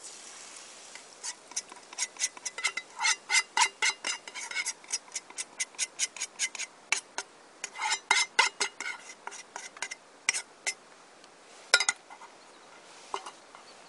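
A utensil clinking and scraping quickly against a small bowl, about four strokes a second, as mixed OvaEasy egg is stirred and scraped into a frying pan, with a few last clinks near the end.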